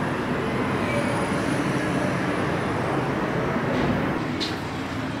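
Steady city traffic noise: a continuous low rumble of passing vehicles, with no clear single event.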